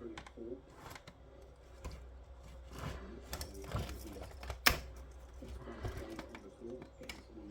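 Scattered small clicks and taps of plastic parts being handled and snapped during the dismantling of a TV, with one sharper, louder click about two-thirds of the way in.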